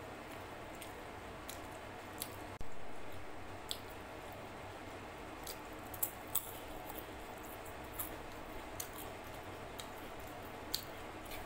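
Eating sounds: wet mouth clicks and smacks of chewing rice and chicken curry eaten by hand, scattered sharp clicks over a steady background hum. About two and a half seconds in comes a sudden louder sound that fades over about a second.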